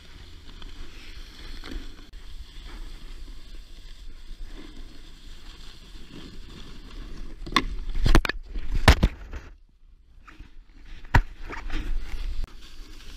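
Snowboard sliding and carving over groomed snow, a steady scraping rush with wind on the mic. A cluster of sharp knocks comes about eight to nine seconds in, then the sound drops away briefly before another sharp knock about eleven seconds in.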